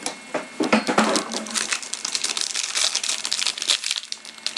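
Hockey card pack wrapper crinkling and tearing as it is opened by hand: a dense run of irregular crackles.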